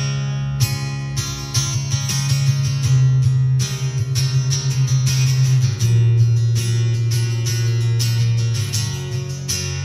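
Amplified acoustic-electric guitar strummed in a steady rhythm, playing the intro to a country song. The chords change every two to three seconds.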